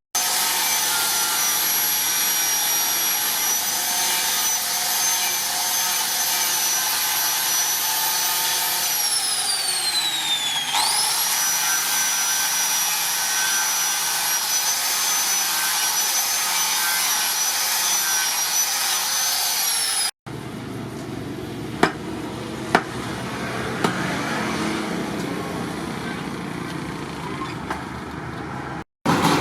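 A power grinder runs with a steady high whine while working the steel hammer head. About 9 s in, the pitch sinks as the disc is pressed harder into the metal, then springs back when it is eased off. After a cut, a quieter rasping of abrasive on steel follows, with a few sharp ticks.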